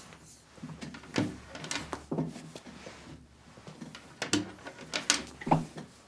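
Scattered light knocks, bumps and rustling from someone groping about under a wooden table, about five separate knocks spread irregularly.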